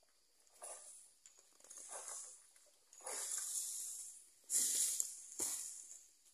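Oil palm fronds rustling and scraping in repeated bursts as a long-pole harvesting sickle is worked against them. The two loudest, sharpest bursts come about four and a half and five and a half seconds in.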